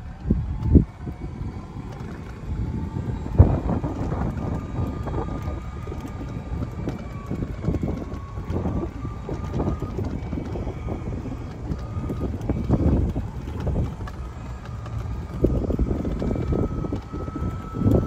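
Wind buffeting the microphone over the low rumble of a moving vehicle, with a faint whine that drifts slightly in pitch. A sharp knock comes about a second in and another a few seconds later.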